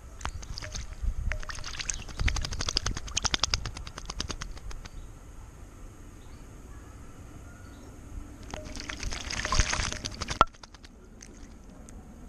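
Male blackbird bathing in a shallow stone birdbath, beating its wings in the water in two bouts of rapid splashing. The first bout lasts a few seconds; the second comes near the end and stops abruptly with one sharp splash.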